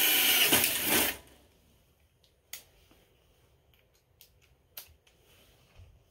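Cordless drill running under load, boring into the diamond-plate floor pan, then stopping about a second in. A few sharp clicks follow as the tool and parts are handled.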